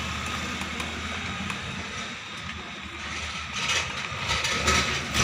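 Plastic casing parts of a rechargeable fan being handled and fitted together: soft rubbing with a few light clicks in the second half, over a steady low hum.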